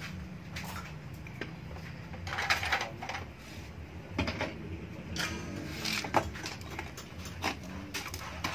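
Scattered light metal clinks and knocks as steel exhaust parts are handled on a concrete floor, over a steady low hum.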